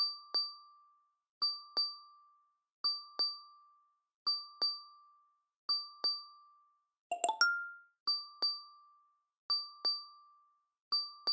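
Clock tick-tock sound effect: pairs of short, ringing ticks repeating evenly about every second and a half. A little after halfway, one pair is replaced by a brief different chime.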